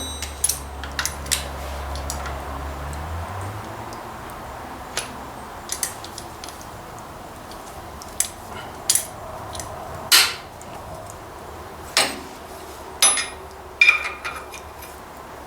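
Metal hand tools clinking and tapping against tractor parts: scattered sharp clicks a second or two apart. A low hum stops about three seconds in.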